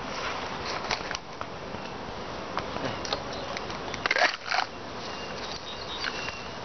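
Honeybees buzzing around the hives as a steady hum, with small clicks and a brief louder scuff about four seconds in.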